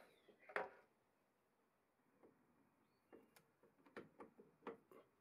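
Near silence broken by faint metal clicks and light knocks as a lathe chuck is handled and fitted onto the threaded spindle nose of a home-made dividing head. There is one sharper click about half a second in, then a cluster of small knocks in the last couple of seconds.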